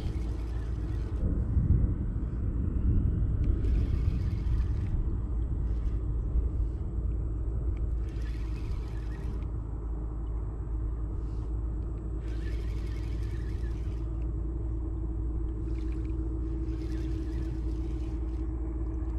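Steady low rumble of wind buffeting the microphone in the open, with a short burst of hiss about every four seconds and a faint steady hum from about halfway through.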